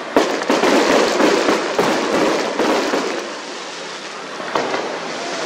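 Fireworks going off overhead: a sharp bang, then dense crackling for about three seconds that thins out, and another single bang near the end.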